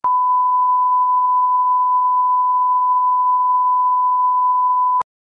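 Steady single-pitch line-up test tone, the reference tone that goes with colour bars, cutting off suddenly about five seconds in.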